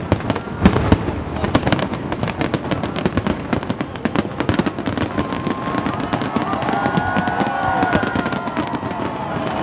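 Fireworks display: a dense, rapid crackle of pops and bangs, with a louder bang about a second in. Over the second half, high wavering tones sound above the crackle.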